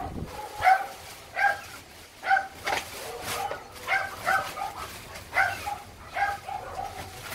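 Newborn kittens mewing over and over in short, high calls. Plastic garbage bags rustle as they are pulled open.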